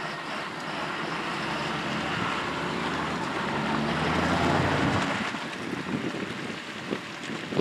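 John Deere tractor's diesel engine pulling a loaded slurry tanker, its tyres churning through muddy puddles. The sound builds to its loudest about four to five seconds in, then drops away suddenly.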